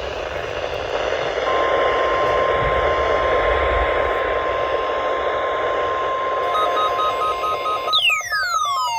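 NOAA Weather Radio through a receiver: a steady hiss of static, then about a second and a half in the long, steady 1050 Hz warning alarm tone that comes before a warning message. Near the end, pulsing electronic beeps join in, and a high tone sweeps quickly downward.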